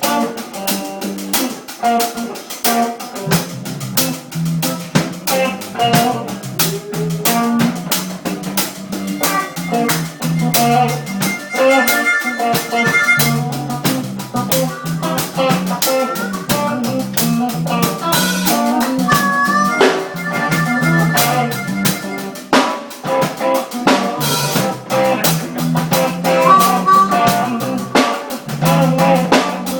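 Live band playing an instrumental passage: a drum kit keeping a steady beat over a walking bass line, with guitar.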